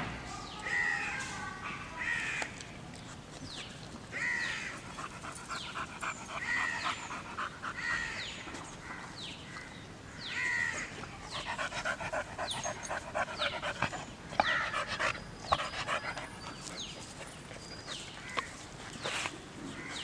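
A pit bull panting and chewing at a raw whole chicken. Through the middle there is a fast run of short chewing and tearing sounds.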